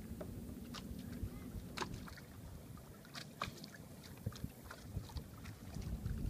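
Small waves lapping and splashing, with scattered faint ticks and a low wind rumble on the microphone.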